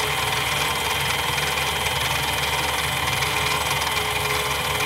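Mini metal lathe running at a steady speed with a constant motor hum and a faint steady whine, turning a brass bushing during a light two-thousandths-of-an-inch cut.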